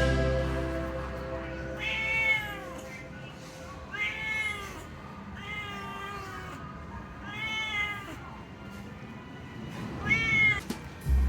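A cat meowing five times, each meow a short call that rises and falls in pitch, spaced about two seconds apart. Background music fades out at the start.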